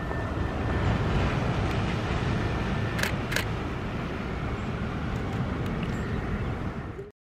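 Airbus A330neo's Rolls-Royce Trent 7000 turbofans on landing approach: a steady jet roar as the airliner passes close by, with two short clicks about three seconds in. The sound cuts off suddenly near the end.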